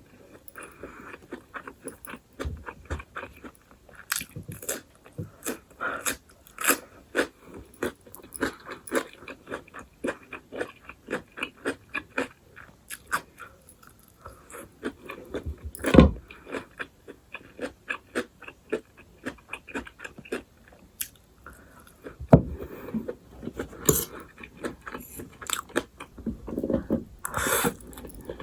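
Close-miked chewing and crunching of food, with many quick wet mouth clicks, from a meal of stir-fried instant noodles, sausage and raw radish and cucumber. A single loud thump comes about halfway through.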